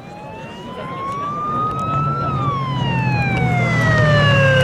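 Wailing siren on an approaching vehicle, its pitch rising slowly for about two seconds and then falling, with the vehicle's engine growing louder underneath as it comes closer.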